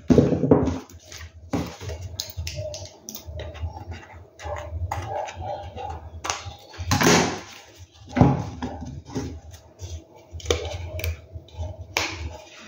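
Scissors snipping velvet fabric trimmed around a cardboard disc, among irregular handling noises: rustles, light taps and a few louder scrapes of the craft pieces on the table.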